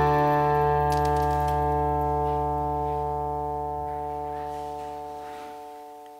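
Background music ending on a held chord that slowly fades out.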